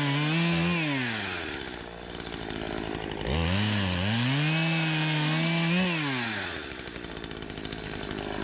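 Two-stroke chainsaw cutting firewood. It runs at full throttle, drops to idle about a second in, revs back up for a second cut at about three seconds, and falls back to idle near six seconds.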